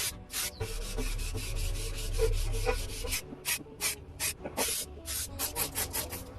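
Sanding strokes: short, irregular rasping strokes, with one longer stretch of continuous rubbing starting about half a second in.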